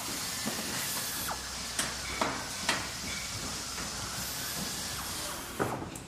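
Factory machinery ambience: a steady, hissing machine noise with a run of sharp knocks about two seconds in and another near the end, where the hiss drops away.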